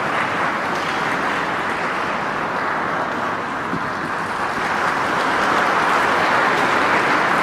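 Audience applauding, a dense steady clapping that grows a little louder about five seconds in.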